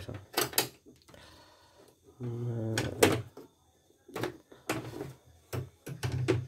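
A CNY portable embroidery machine running: a brief motor hum about two seconds in, with irregular sharp mechanical clacks throughout.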